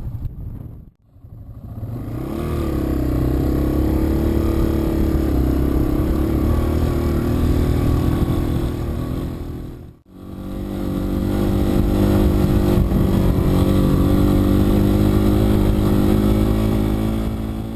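Yamaha TW200's single-cylinder four-stroke engine running hard under steady load, as on a steep uphill climb. The sound cuts out briefly twice, about a second in and about ten seconds in.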